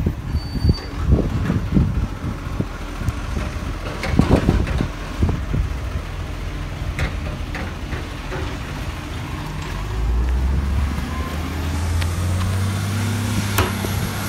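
Recycling garbage truck's engine running, with irregular low thumps in the first few seconds. About ten seconds in, the engine settles into a louder, steady hum.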